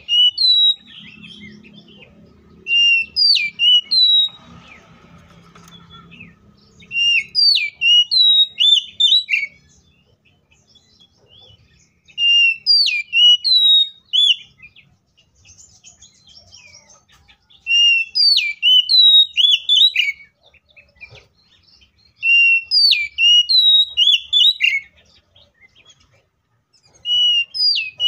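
Oriental magpie-robin singing: loud phrases of clear whistled notes sweeping up and down, repeated about every five seconds with short pauses between.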